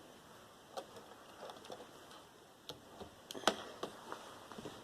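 Irregular light clicks and small knocks of cables and parts being handled while a desktop computer is taken apart, the sharpest click about three and a half seconds in.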